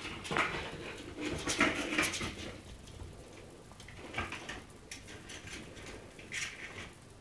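Yorkshire terrier puppy at play, giving a series of short growls and yips, loudest in the first two seconds and sparser after.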